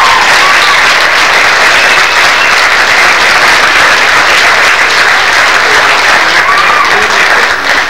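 Loud, steady audience applause, the clapping easing slightly near the end.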